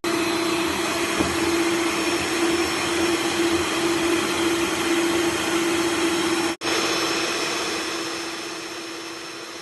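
Electric mixer motor running steadily with a constant whine, beating a batch of homemade slime. It cuts out for an instant about two-thirds through, then grows gradually quieter near the end.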